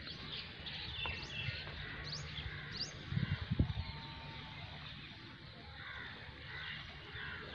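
Birds chirping, with short rising calls over a steady outdoor hiss. A few low thuds come about three seconds in.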